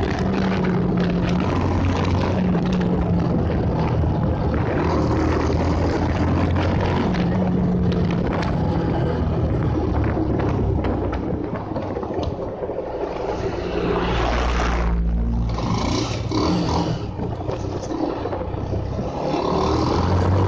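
Bajaj Pulsar motorcycle's single-cylinder engine running under way, with rushing wind noise. The engine note drops back about halfway through and picks up again near the end.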